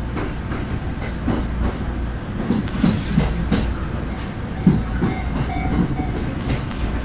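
Local passenger train running, heard from inside the carriage: a steady low rumble with wheels clacking over the rails.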